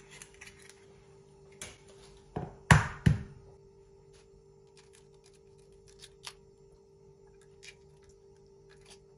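An egg knocked three times in quick succession against the rim of a stainless steel mixing bowl to crack it, followed by scattered faint clicks and crackles of eggshell being handled and pulled apart.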